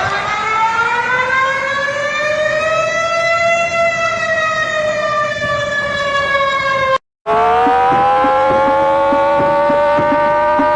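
Two warning sirens, one after the other. First Malaysia's public warning siren: a slow wail that rises in pitch and then slowly falls. After a sudden cut, Iran's warning siren winds up in pitch and holds a steady wail, with a low pulse of about three beats a second under it.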